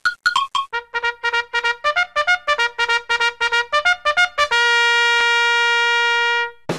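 Intro music: quick repeated staccato notes, joined by a lower part about a second in, then a long held chord that cuts off abruptly just before the end.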